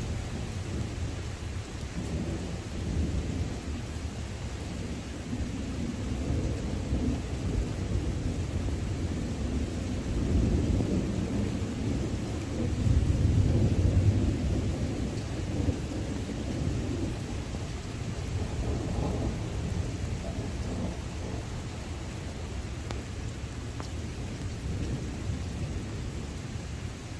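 Thunder rolling in a long low rumble that swells to its loudest about halfway through, then slowly fades, over a steady hiss of rain.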